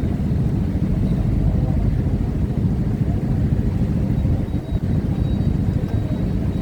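Steady low rumble of truck and car engines.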